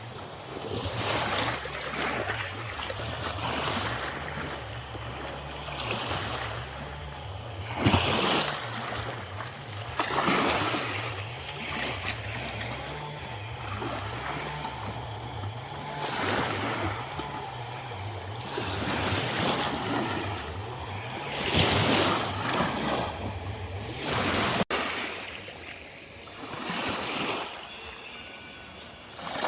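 Small waves washing in at the water's edge, surging and ebbing every few seconds, a few surges stronger than the rest.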